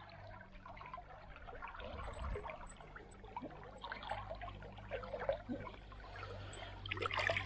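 Shallow river water trickling and gurgling around the legs of a wading angler, with small irregular splashes, a little busier near the end.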